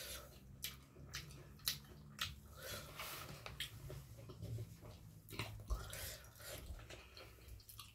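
A person chewing food close to the microphone: irregular wet mouth clicks and smacks.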